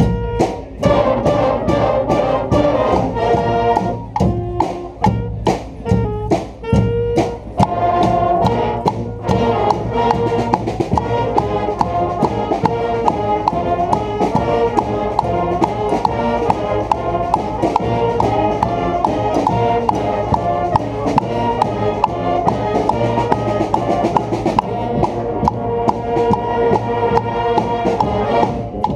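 Street brass band playing a rock-style tune: horns, saxophones and tubas over a drum section keeping a steady beat. The band plays short punchy stabs for the first several seconds, then settles into continuous full-band playing.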